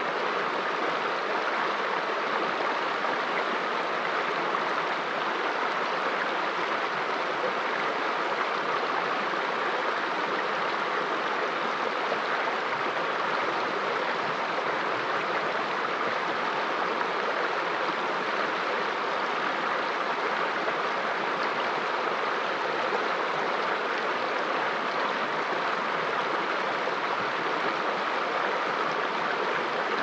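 Shallow rocky stream running over stones and small riffles: a steady, even rush of water.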